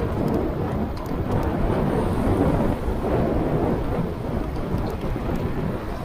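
Wind buffeting the microphone of a moving bike's action camera: a loud, low rumble that rises and falls in gusts, over the hiss of riding on a wet road.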